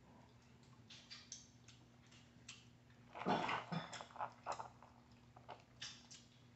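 Boiled crawfish being cracked and peeled by hand: scattered small clicks and crackles of shell, with a louder run of cracking about three seconds in. A faint steady low hum runs underneath.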